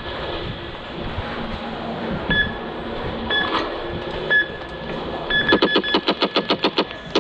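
Laser tag gun electronics: short beeps about once a second, then a rapid burst of about a dozen electronic shots, around eight a second, near the end.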